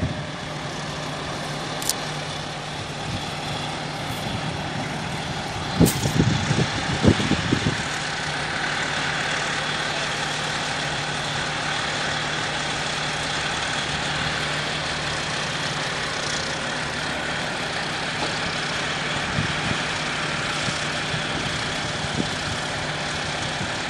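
M88 armoured recovery vehicle's air-cooled V12 diesel running steadily as the tracked vehicle drives along railway flatcars. A cluster of loud knocks and clanks comes about six to seven seconds in.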